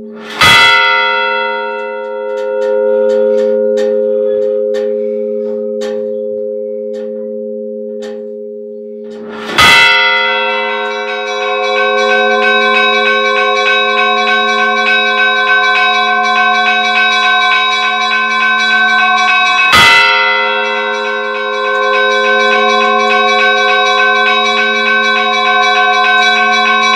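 Church bells ringing: a large bell is struck three times, about ten seconds apart, each stroke ringing on over a steady low hum. From the second stroke onward, smaller bells chime rapidly and continuously.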